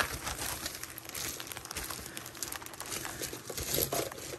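Crinkling and many small clicks from a costume-jewelry necklace being handled and opened up to its full length.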